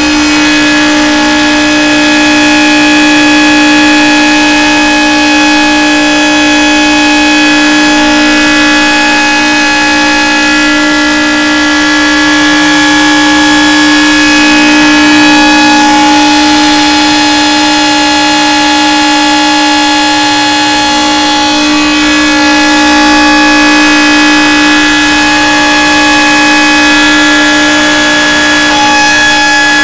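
Outdoor tornado warning siren sounding a loud, steady tone that holds one pitch throughout, swelling and easing slightly in loudness.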